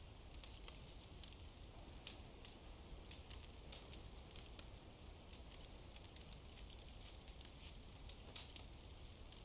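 Campfire crackling faintly, with scattered sharp pops of burning wood over a low steady hum.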